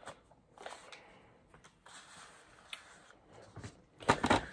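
Handling noises from a paper ice cream cup: light taps, clicks and rustles of the cup and its lid, then a short burst of louder clattering near the end as the cup and paper plates are moved on the tray.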